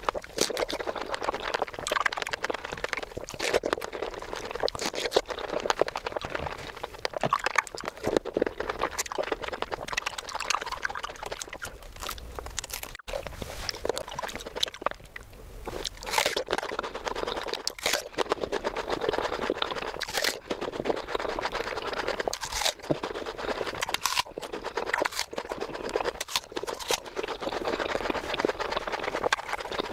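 Close-miked ASMR eating of fresh fruit: wet chewing and crunching with many small mouth clicks and smacks. In the second half there are sharper bites every second or two.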